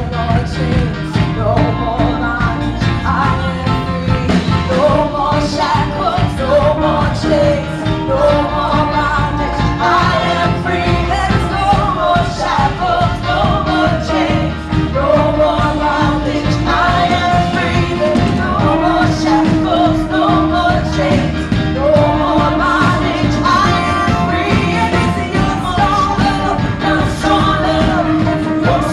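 Live Christian praise-and-worship music: a full band with drums and bass playing a steady, upbeat song while singers carry the melody.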